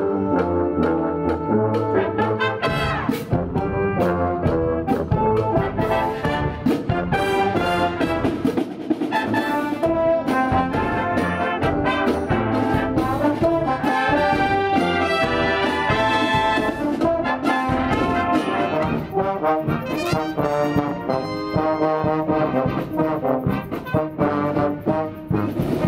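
A brass and show band playing live: trombones, trumpets, saxophones and baritone horns in full chords over marching drums.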